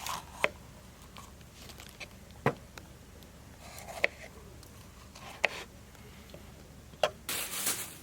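Scattered sharp clicks and knocks, about one every second or so, with a short rustling scrape about seven seconds in: handling noises.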